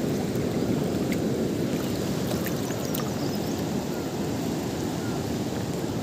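Steady rushing of a fast-flowing river close by, with a few faint clicks.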